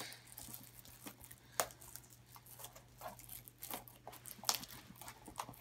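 Plastic shrink-wrap being picked at and peeled off a small cardboard blind box: faint crinkling with a few sharper crackles.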